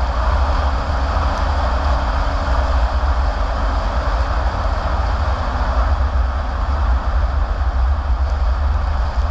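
Steady road noise from a car driving on asphalt, heard inside the cabin: tyre roar over a constant low rumble.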